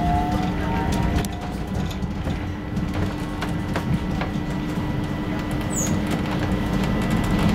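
Stockholm A35 tram running at just over 30 km/h, heard from inside the car: a steady rumble of wheels on rail with scattered clicks and a steady hum. A rising motor whine from the acceleration fades out about a second in.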